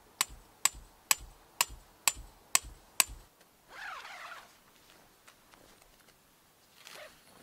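A tent peg being driven into the ground with a hammer: seven sharp strikes, about two a second, each with a bright metallic ring. About a second later comes a short rustle of tent fabric being pulled.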